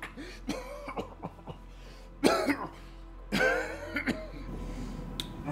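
A man's smoker's cough: a few small coughs, then two loud coughing fits about two and three and a half seconds in. Faint background music underneath.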